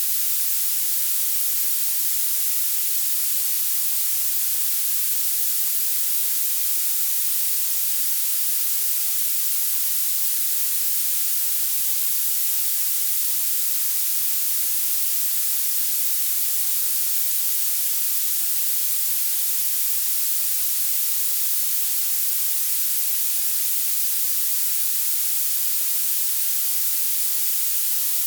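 Violet noise: a steady synthetic hiss whose energy climbs toward the very highest pitches, with almost nothing in the bass, so it sounds thin and sharply sibilant. It does not change throughout.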